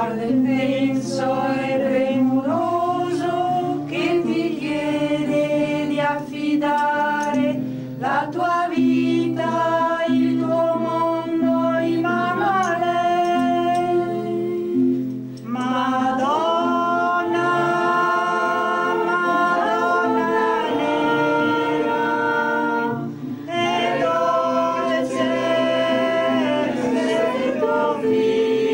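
A group of voices singing a slow hymn together in long held notes, with an acoustic guitar played along. There are short breaks for breath about halfway through and again a few seconds later.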